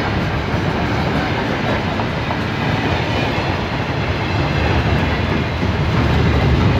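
Container freight cars rolling past close by: a steady rumble of steel wheels on the rails that grows a little louder near the end.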